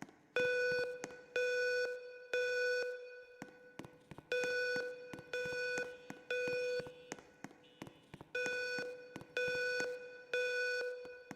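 School fire alarm system sounding its evacuation tone in the three-beep temporal pattern: three steady buzzy beeps about a second apart, a pause, then the group of three again, three times over. This is the standard signal to evacuate the building.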